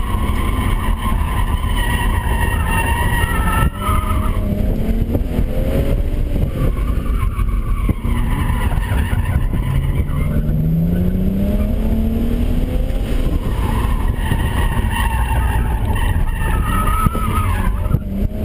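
2007 BMW 335i's twin-turbo straight-six running hard in second gear on an autocross course, heard from inside the cabin. The Hankook RS3 tyres squeal through the turns in the first few seconds and again near the end. About ten seconds in, the engine note climbs in pitch as the car accelerates.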